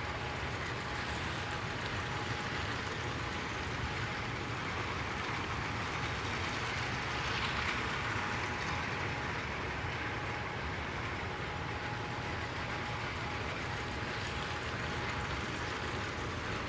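Hornby Live Steam OO-gauge model of the LNER A4 locomotive Seagull running at low speed with its steam valve partly open, hauling about thirteen coaches. It makes a steady running noise that swells slightly about halfway through.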